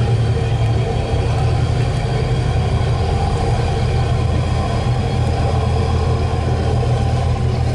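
Diesel engines of a high-speed catamaran ferry running at low speed while it manoeuvres in harbour: a steady low drone with a faint steady whine above it.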